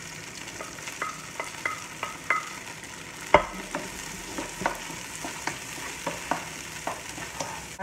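Chopped onion sizzling as it goes into hot oil in a pot and is sautéed. A wooden spatula scrapes and taps repeatedly as it pushes the onion off the plate and stirs it, with one sharp knock about three seconds in.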